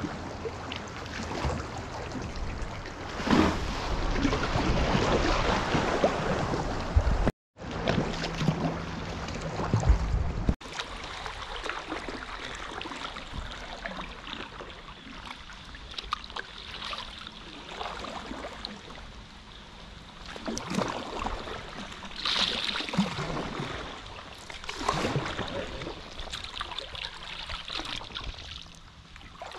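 Water splashing and trickling around a sea kayak as the paddle dips in, with shallow sea water lapping against rocks. It is louder for the first seven seconds, broken by a brief silence, then quieter, with scattered paddle splashes.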